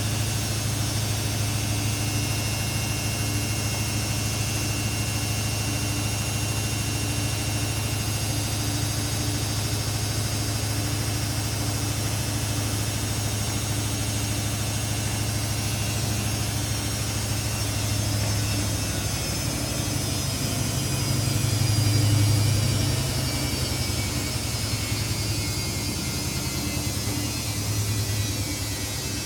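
Samsung P1271 front-loading washing machine running, a steady low hum of the motor and drum. In the second half its high motor whine falls in pitch, with a brief swell about two-thirds of the way through, as the drum slows from spinning.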